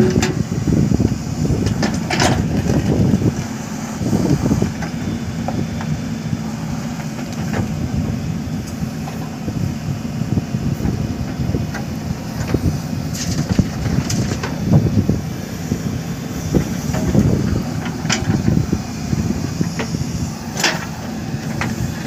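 JCB 3DX backhoe loader's diesel engine running under hydraulic load while the backhoe digs, its note rising and falling with each dig and swing. A few sharp clanks and scrapes come from the steel bucket striking stones.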